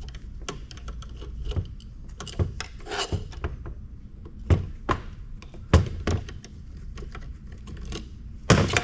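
Irregular clicks, taps and knocks of a hand screwdriver and loose metal parts as flathead screws are taken out of a bracket on a microfiche reader, with a few louder knocks in the second half.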